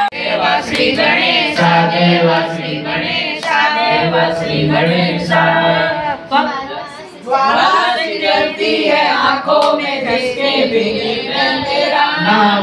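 A group of people singing a Hindi devotional song to Ganesh together, several voices overlapping.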